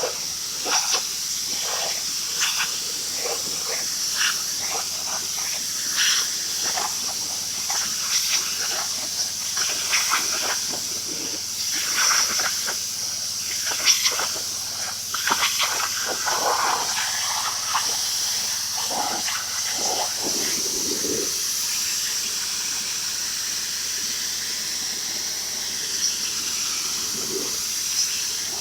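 Pressure washer spraying from a handheld gun with a 40-degree tip, a steady hiss of high-pressure water with irregular splatter as the jet hits deck rails and edges; the splatter thins out about two-thirds of the way in and the hiss carries on steadily.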